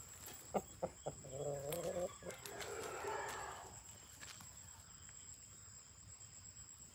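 Faint rooster crowing, starting about a second in and lasting two to three seconds, with a few light clicks just before it.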